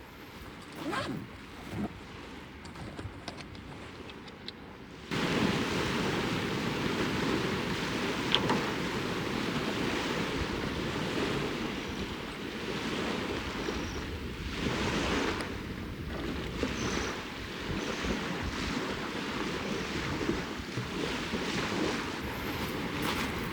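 Lake waves washing on the shore with wind on the microphone: a steady rushing noise that starts abruptly about five seconds in. Before it there is a quieter stretch with a few light clicks.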